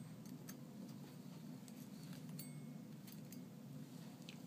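Faint, scattered light clicks and clinks of shattered iPad 2 screen glass fragments being cleared away, over a steady low hum.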